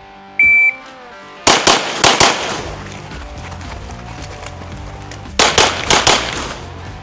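A shot timer beeps once, then a pistol fires a quick string of shots, and after a pause of about three seconds a second quick string, for a shoot-and-move drill of two rounds per target between moves. Background music plays underneath.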